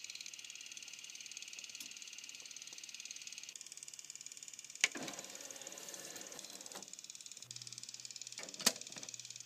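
Faint mechanism sounds from a Kenwood DP-5090 CD player: a steady soft whir that drops away a few seconds in, and a sharp click about five seconds in followed by a short whirring rustle. A low steady hum sets in a little later, and another sharp click comes near the end.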